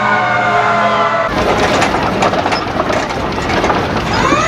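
Fire truck siren wailing, its tone slowly sinking, then cut off abruptly about a second in by a loud rushing, clattering noise. A new rising tone sweeps up near the end.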